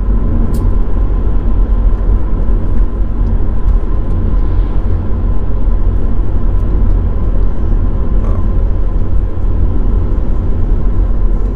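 VW Caddy driving at steady speed, heard from inside the cabin: an even, low rumble of engine and tyre road noise.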